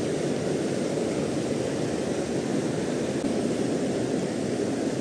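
Steady rushing of a fast-flowing rocky river, an even low roar with no breaks.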